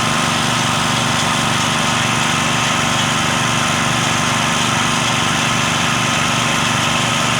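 Small engine of a well-drilling machine running steadily at a constant speed.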